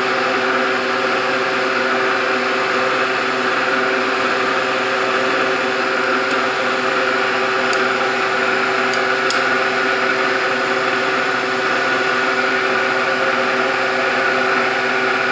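Machine-tool spindle running at steady speed with a center drill, a steady mechanical whine of several fixed pitches. A few faint ticks come in the middle.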